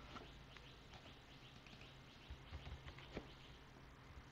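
Near silence: a few faint computer keyboard keystrokes over a low steady hum, with faint rapid chirping in the background that stops near the end.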